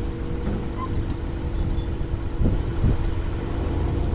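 An engine running at a steady idle: a constant hum over a low rumble.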